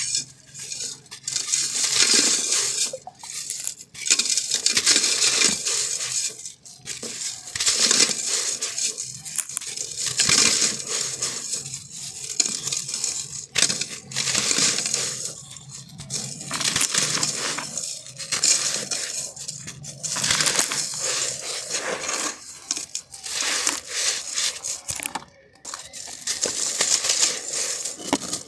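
Dry, crunchy black sand being crushed in the hand and crumbling into a clay pot. It comes in repeated gritty crackling bursts, each a second or two long, with brief pauses between them.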